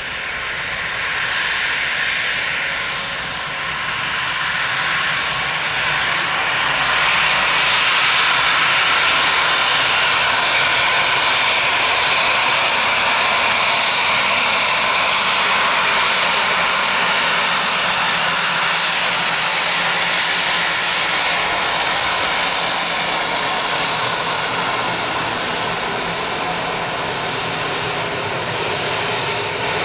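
A Gulfstream C-37B (G550) business jet's twin Rolls-Royce BR710 turbofans running at taxi power: a steady jet whine and rush that swells over the first several seconds as the jet comes close, then holds.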